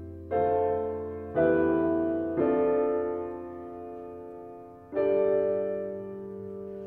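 Background piano music: four slow chords, each struck and left to fade, the last and longest about five seconds in.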